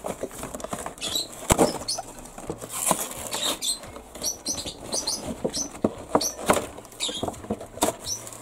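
Cardboard toy box and its packaging being handled and pulled open: irregular scraping, rustling and crackling, with scattered sharp knocks of cardboard.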